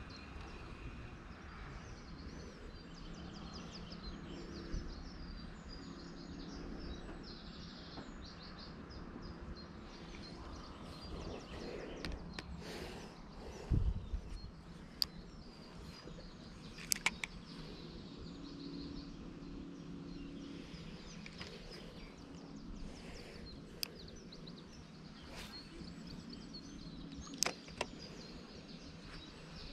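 Open-air ambience with small birds chirping and an on-and-off faint low hum. Around the middle come a low knock and several sharp clicks as the spinning reel and rod are handled, with one more click near the end.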